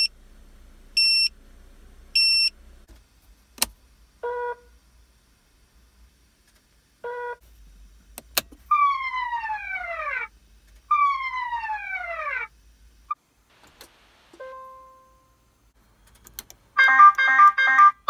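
A sequence of electronic warning alerts from a car's add-on dashboard panels. It opens with three high beeps about a second apart, the tire pressure monitor's low-pressure alert, and continues with switch clicks, short single tones and two long falling sweeps. Near the end a rapid, busy multi-tone alarm starts: the engine compartment fire warning.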